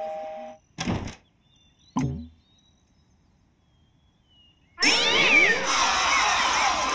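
Cartoon sound effects: a short cat-like vocal sound about a second in and a thunk about two seconds in, then silence. From about five seconds in comes a loud, dense chorus of many high, squeaky cartoon voices, a crowd of cockroaches cheering.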